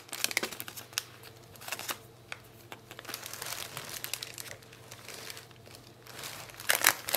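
Cellophane packaging and paper die cuts crinkling and rustling as they are handled: light, scattered rustles, quieter in the middle, then louder crinkling near the end.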